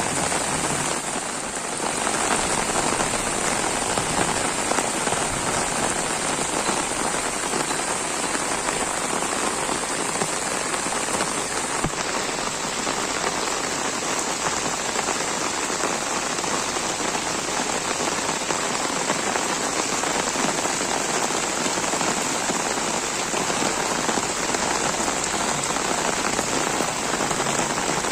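Steady rain falling, an even, continuous hiss of rain.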